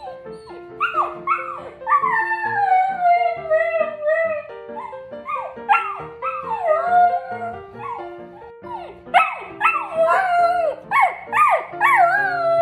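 Samoyed puppy howling: a string of short cries that rise and fall in pitch, one long howl that slides slowly downward about two seconds in, and a quick run of shorter cries near the end. Background music plays underneath.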